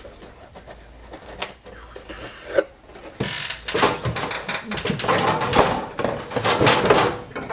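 Clicks, knocks and scraping of a Master Replicas lightsaber hilt being handled and taken apart. The sounds are scattered at first and become busier and louder about three seconds in.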